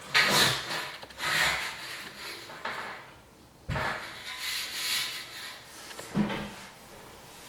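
Intermittent rubbing and scraping handling sounds, a few seconds apart, with a sudden knock about three and a half seconds in.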